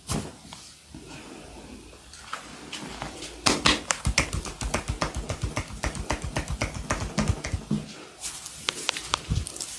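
Fast rhythmic hand tapping of a massage, palms or fingers striking the body about six times a second. A single sharp click at the very start, before the tapping begins.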